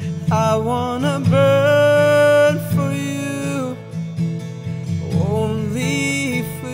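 A man singing long held notes over a strummed acoustic guitar.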